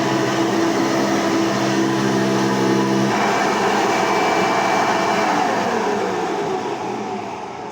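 Hoover Elite 200 soft-bag upright vacuum's 6-amp motor running steadily, then switched off about three seconds in and winding down, its pitch falling and the sound fading as the fan slows.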